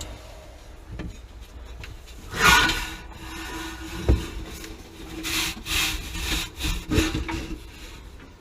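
Scraping and rubbing against wood in two bouts, with a few sharp knocks between them.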